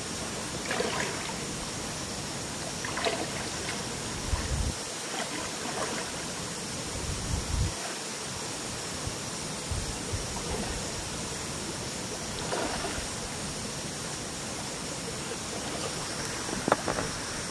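Shallow river water flowing over rocks in a steady rush, with a few brief splashes as a man wades through it.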